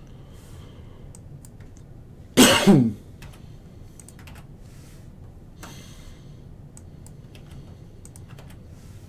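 Scattered light clicks of a computer keyboard and mouse as a list of names is edited. About two and a half seconds in, a man gives one loud throat-clearing cough.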